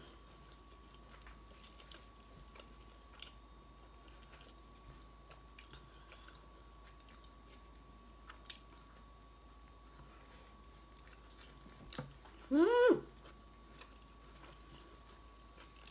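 Soft chewing and small wet mouth clicks of a person eating a chicken burrito. About twelve and a half seconds in, a brief hummed vocal sound rising in pitch.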